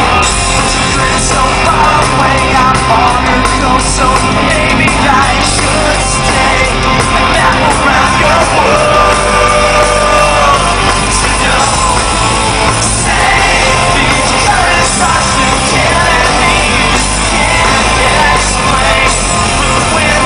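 Live rock band playing on stage with a singer singing, recorded loud from within the audience, with the crowd shouting and yelling over the music.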